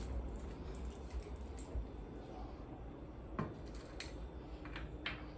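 A few light clicks and clinks of small objects being handled on an altar, over a steady low rumble.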